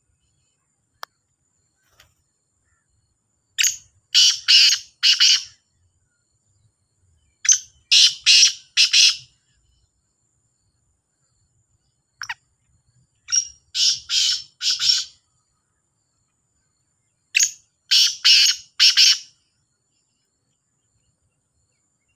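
Caged black francolin calling: four harsh phrases about four to five seconds apart, each a short lead note followed by three longer, louder notes.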